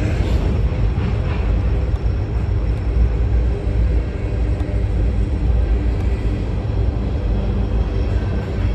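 Freight train rolling along the tracks: a steady low rumble of wheels on rail.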